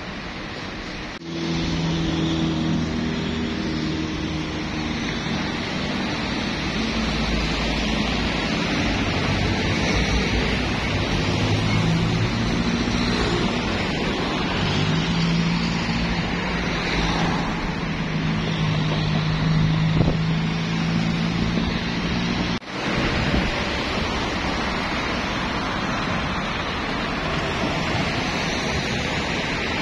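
Road traffic: a steady rush of tyre and wind noise with a vehicle engine's low hum. The sound breaks off abruptly about a second in and again about three-quarters of the way through.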